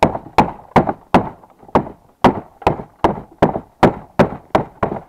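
Hammer blows on metal, about three a second in an even rhythm: a small piece of metal, a washer taken from the hood, being beaten straight.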